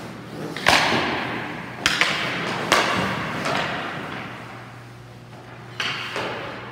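Hockey pucks and sticks cracking in a goalie warm-up, four sharp hits each trailing off in a long rink echo, over a steady low hum.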